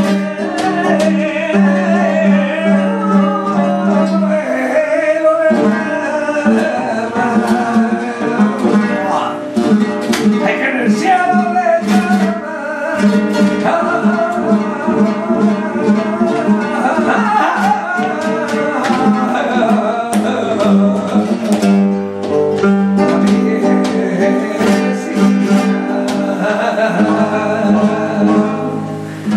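Flamenco serrana: a male voice sings long, wavering, ornamented lines over a nylon-string flamenco guitar's strummed chords and plucked runs.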